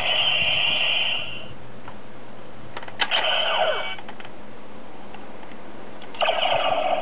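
Kamen Rider Decade DX Decadriver toy belt playing its electronic sound effects through a small speaker: a bright electronic tone that stops after about a second and a half, a few plastic clicks from the belt's mechanism followed by a second effect with a falling sweep, then a third effect starting near the end.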